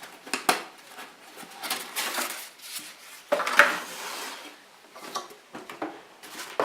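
A cardboard box being opened and the parts inside handled: irregular rustling, knocks and light clatter, with a longer, louder rustle about three and a half seconds in.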